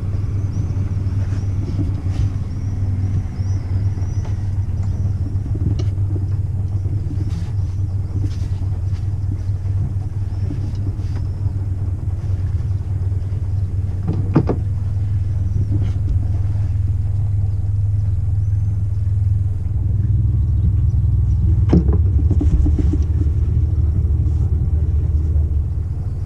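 Sailboat's inboard engine running at low revs while manoeuvring in harbour, a steady low rumble that grows louder about twenty seconds in. Two short knocks sound partway through.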